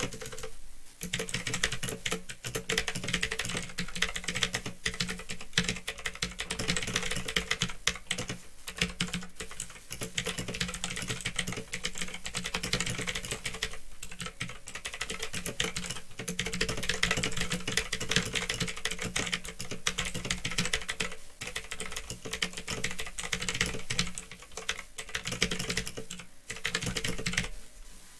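Fast, continuous typing on a Phantom Tecware 87 mechanical keyboard with Otemu blue clicky switches: a dense patter of sharp key clicks, with a brief lull just after the start and stopping shortly before the end. A steady low hum runs underneath.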